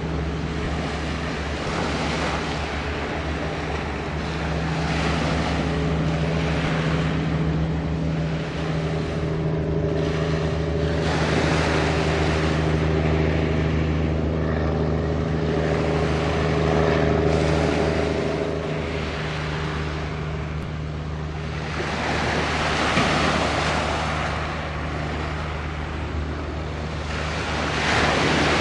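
Waves washing in, the hiss swelling and fading every few seconds, over a steady low drone from a passing ship's engines. Wind buffets the microphone.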